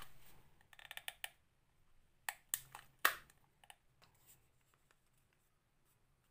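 A series of small sharp clicks and taps of hard objects being handled on a workbench, bunched in the first half and trailing off to near quiet.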